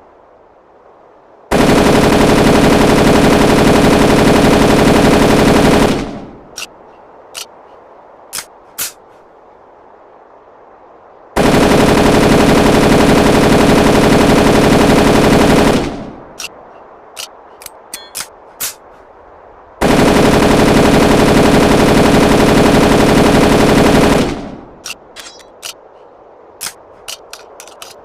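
MP34 submachine gun firing three long bursts of full-automatic fire, each about four and a half seconds, with several sharp clicks after each burst.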